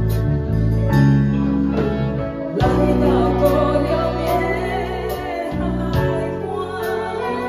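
Music: a song with guitar and bass and a steady beat, with a singing voice coming in about two and a half seconds in.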